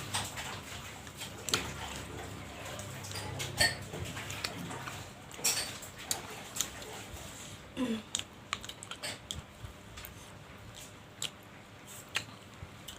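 Close-miked eating sounds: irregular wet clicks and smacks of a person chewing, with a short rising squeak about eight seconds in.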